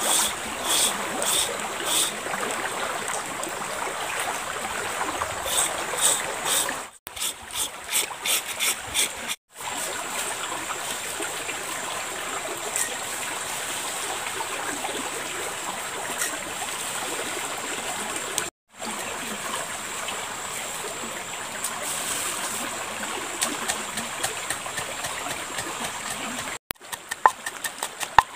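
A shallow river runs over its bed in a steady rushing wash. Runs of sharp taps, about two a second, come at the start, again a quarter of the way in, and near the end.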